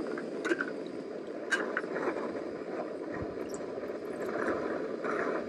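Butane-propane canister backpacking stove burning with a steady rushing hiss. A few light clicks from a plastic water bottle being opened, and water poured into a metal pot near the end.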